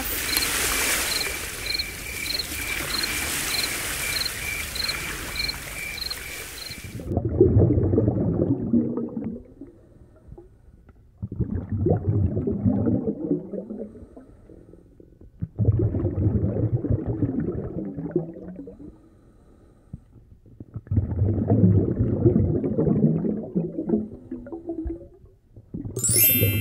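Underwater sound effects. For about seven seconds there is a hiss of rushing water with a faint high tone pulsing about twice a second. Then come four bouts of low bubbling and gurgling, each a few seconds long, with short pauses between them.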